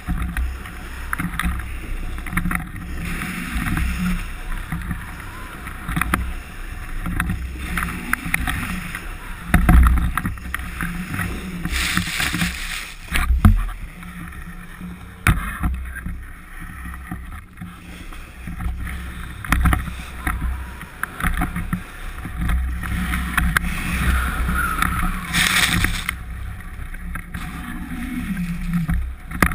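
Wind buffeting a GoPro microphone as a snowboard slides down a groomed piste, with the board's edge scraping and hissing over the snow. A louder hissing scrape comes about twelve seconds in, ending in a hard knock, and another near the end.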